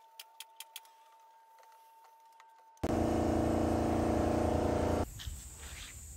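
A few faint clicks, then a motor starts abruptly and runs loudly and steadily for about two seconds before cutting off suddenly.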